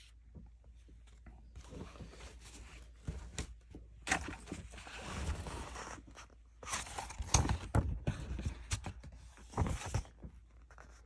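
A book being handled and its paper pages turned: irregular rustling and scraping, with a few sharp knocks, loudest a little past the middle.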